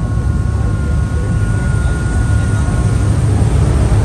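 Steady low rumble of a river cruise boat underway, with a faint high whine that fades out about three seconds in.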